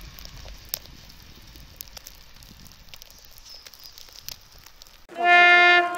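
A train horn sounds one loud, steady blast of just under a second, about five seconds in. Before it there is only a faint hiss with a few light clicks as an electric multiple unit fades away into the snowfall.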